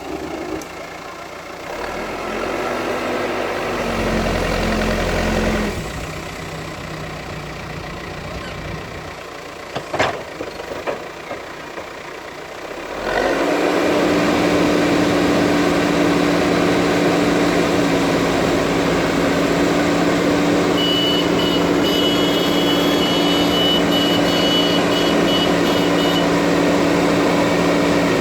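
JCB 3DX backhoe loader's diesel engine running: uneven and quieter at first, with a sharp knock about ten seconds in. From about halfway it settles into a louder, steady drone, and a high beeping tone sounds for a few seconds near the end.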